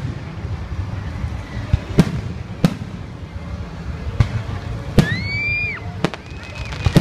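Aerial fireworks shells bursting: several sharp bangs spread through, over a steady low rumble. About five seconds in, a high whistle rises and holds for under a second.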